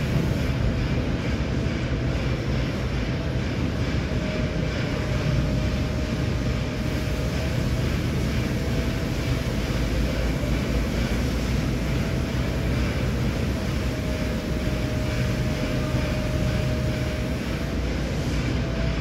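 A steady droning hum, strongest low down, with a faint held tone above it that dips slightly in pitch now and then.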